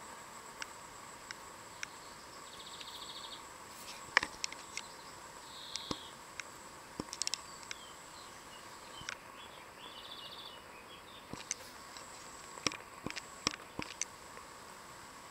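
Small birds chirping in brief bursts over a faint steady high hum, with scattered light taps and clicks as kittens clamber and scrabble on a weathered wooden wagon wheel.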